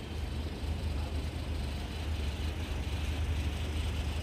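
Steady low rumble with a faint even hiss above it.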